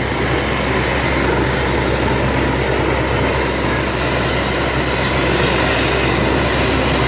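Helicopter running on the ground: a steady high turbine whine over a continuous low rotor and engine drone, unchanging throughout.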